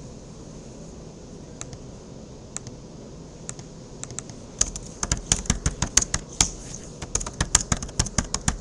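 Computer keyboard typing: a few scattered keystrokes at first, then a quick, steady run of key clicks from about halfway in as commands are typed.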